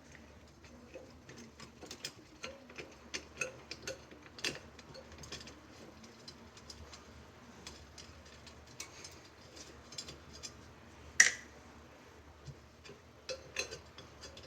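Small, irregular metallic clicks and ticks from bicycle spokes and spoke nipples being loosened and handled during wheel disassembly, with one sharper, louder click about 11 seconds in.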